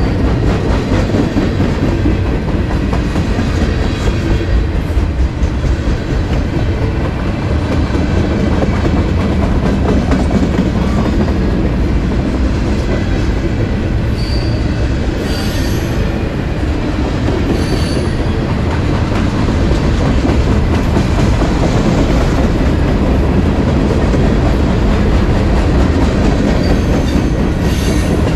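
Empty freight flatcars rolling past, their steel wheels rumbling and clacking over the rail. Short high-pitched wheel squeals come through a few times.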